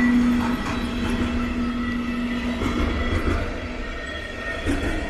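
Electric freight train passing close by: a red electric locomotive goes past with a steady hum, loudest at the start, that fades away a little past halfway. Behind it a long line of covered wagons keeps rumbling along the rails.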